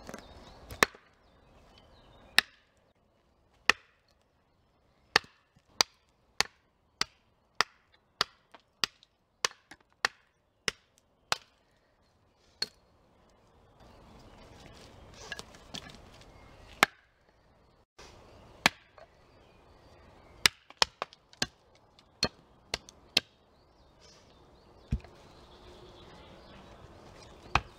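Hatchet chopping wood: a series of sharp, separate blows of the blade biting into wood, coming in a steady run of about one to two a second through the middle, with scattered blows and short pauses before and after.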